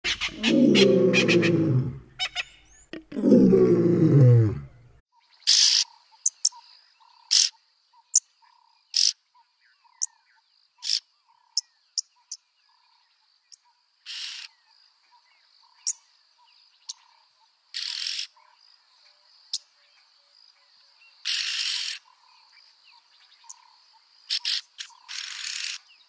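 Yellow-billed oxpeckers calling: harsh, hissing rasps repeated irregularly, most brief and a few held nearly a second, over a steady high insect whine. The first few seconds hold two loud, low, pitched sounds of about two seconds each.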